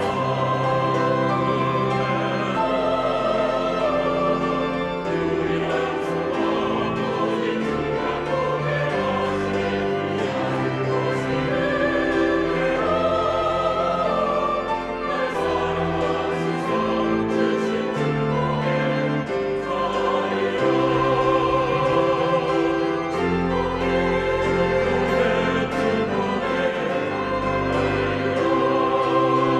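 Church choir singing a Korean anthem in full harmony, accompanied by piano and pipe organ, with long sustained chords.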